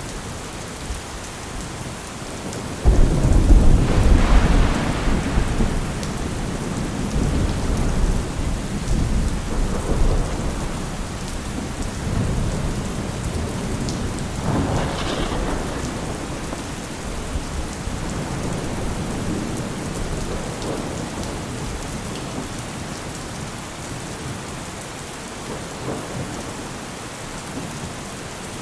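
Steady rain with thunder: a sudden loud thunderclap about three seconds in that rolls on for several seconds, then a second, softer rumble about halfway through.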